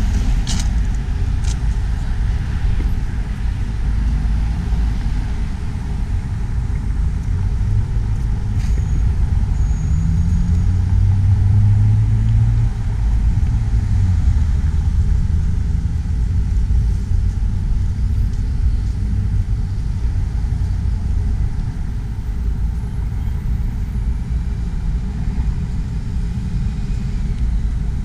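Steady low rumble of road traffic, with one vehicle's engine louder and rising slightly in pitch around ten to thirteen seconds in.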